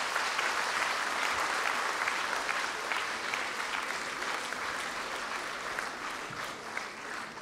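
Audience applauding in a concert hall, a dense patter of clapping that slowly dies down toward the end.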